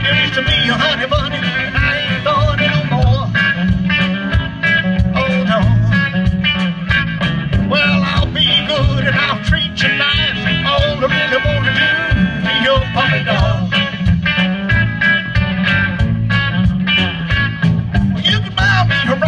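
A live band playing a song: electric guitars and a bass guitar over drums with a steady beat.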